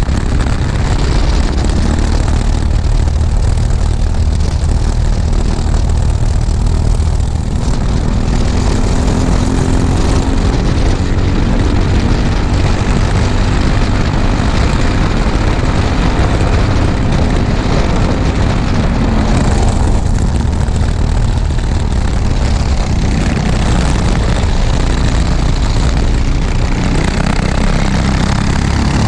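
Racing kart engine running hard at race pace, heard up close, its revs rising and falling through the corners.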